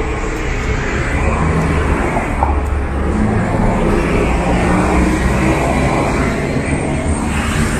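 City street traffic: road vehicles running and passing, a steady low rumble.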